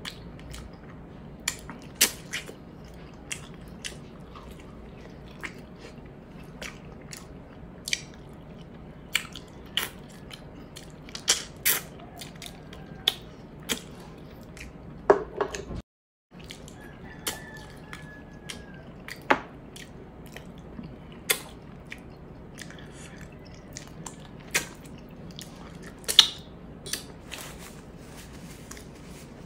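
Close-miked chewing of pork hock and rice: wet, irregular mouth clicks and lip-smacks, with a brief gap of silence about halfway through.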